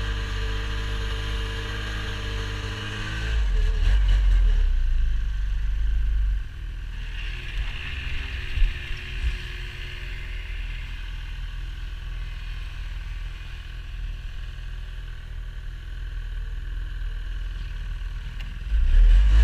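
A vehicle engine running steadily while travelling, getting louder about three seconds in and again near the end, with a single knock near the middle.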